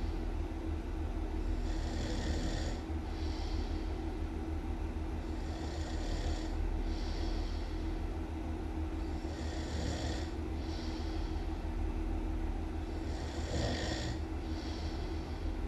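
A person snoring loudly and steadily, about one breath every four seconds, each an airy in-breath and out-breath over a constant low rumble.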